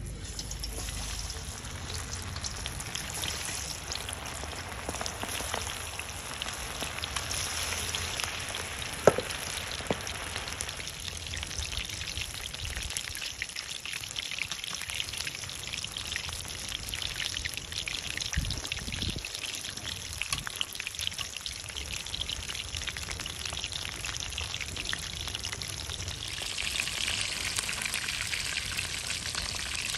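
Masala-marinated chicken drumsticks frying in hot oil: a steady crackling sizzle. There is one sharp click about nine seconds in, and the sizzle grows brighter and louder near the end.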